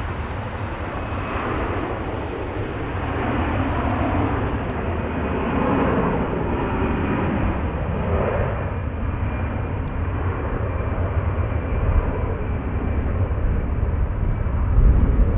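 Airbus A321 jet airliner at takeoff thrust, its CFM56-5B turbofans making a steady broad jet noise that swells and shifts in pitch as it goes by. Strong wind buffets the microphone with a low rumble underneath.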